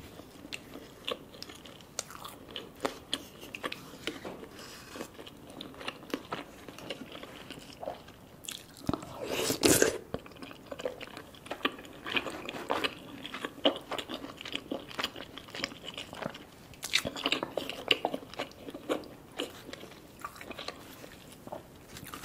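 Close-miked chewing and biting mouth sounds of a person eating curry: many short wet clicks and smacks, with one louder, longer burst about nine to ten seconds in.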